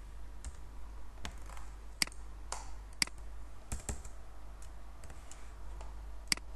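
Typing on a computer keyboard: scattered sharp key clicks, with three louder ones about two, three and six seconds in, over a low steady hum.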